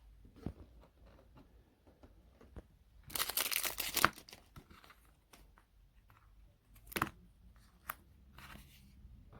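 Handling noises: a few sharp clicks and knocks, with about a second of loud crinkling rustle, as of plastic or paper, about three seconds in.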